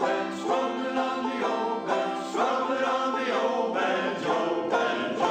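Banjo strummed and picked in a steady country rhythm, about two strokes a second, with a men's chorus singing along.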